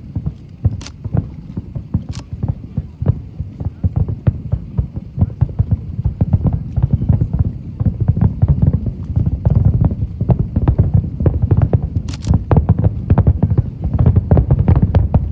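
Aerial fireworks bursting over a lake in a rapid, dense barrage: many deep booms a second, overlapping into a continuous rumble.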